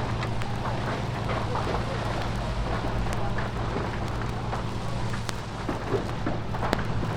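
Heavy fire crackling: a dense, steady bed of irregular pops and snaps over a low, constant roar.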